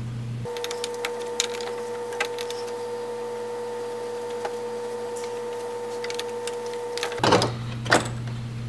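Light clicks and taps of a metal dual-fan shroud being handled and lowered into place in front of the radiator, over a steady high-pitched whine. A louder clatter of handling comes near the end.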